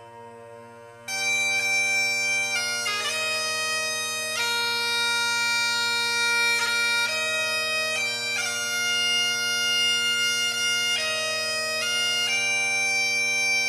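Bagpipes playing a slow tune: the steady drones sound first, then the chanter melody comes in loudly about a second in, moving between held notes over the unbroken drone.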